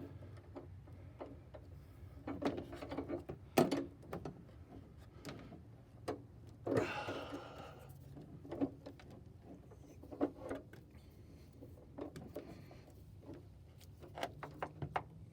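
Scattered metal clicks and knocks of hand tools as an O2 sensor socket and breaker bar are fitted and worked on a tight, seized oxygen sensor, with a short scraping rasp about seven seconds in, over a low steady hum.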